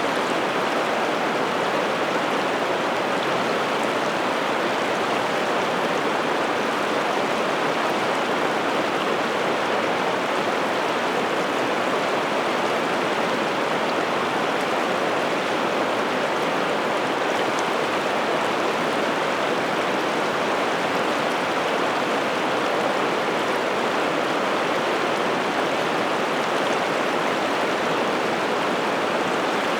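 River water rushing over rapids, a steady, even rush.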